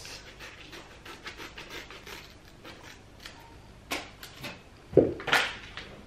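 Shih Tzu panting in quick, even breaths up close. About four seconds in there is a sharp snip, then a louder rustle of the paper treat bag as the scissors cut it open.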